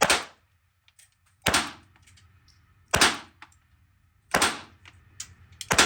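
Five gunshots from a .22 fired at a steady pace, about one every one and a half seconds, each with a short echo off the walls of an indoor range.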